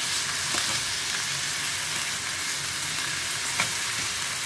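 Chunks of raw pork knuckle and pork belly sizzling steadily in a little hot oil in a pan as they are browned, with a couple of faint taps about half a second in and near the end.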